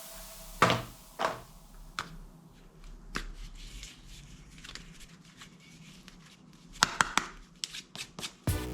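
Plastic toy guns being handled, giving sharp clicks and knocks: two loud ones about a second in, a few softer ones after, and a quick run of several clicks near the end.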